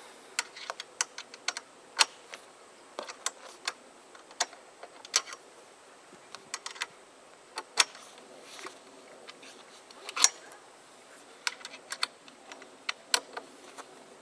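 Irregular sharp clicks and taps of an Allen wrench tightening a caster onto a mechanics roller seat, in short uneven strokes.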